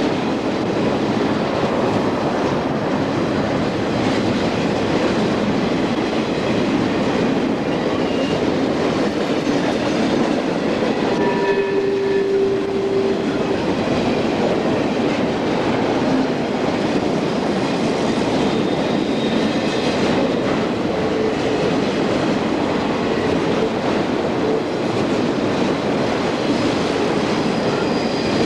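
Southern Pacific intermodal freight train passing close by: container and trailer flatcars roll over the rails with a steady rumble. About halfway through, a brief steady tone rises above the rumble for around two seconds.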